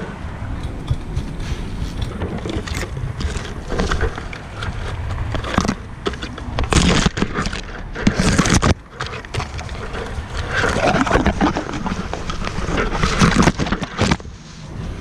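Leafy branches and shoots rustling and scraping as a tree is trimmed, in rough spells that are loudest about halfway through and again near the end, over a steady low rumble.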